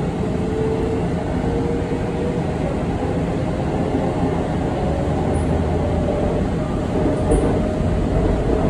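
Seoul Subway Line 2 train running at speed, heard from inside the carriage: a steady rumble of wheels on track and running gear, with a faint whine.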